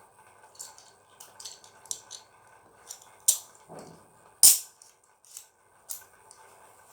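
Scattered light clicks and rattles of a spinning top (gasing) and its string being handled, with two sharper knocks about three and four and a half seconds in.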